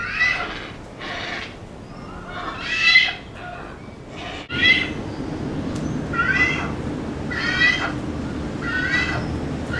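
Young hornbills calling during hand-feeding: short pitched food-begging calls repeated about every second to second and a half. A steady low hum joins the background about halfway through.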